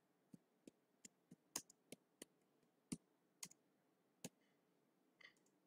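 Faint clicks of computer keyboard keys being typed: about a dozen single keystrokes at an uneven pace.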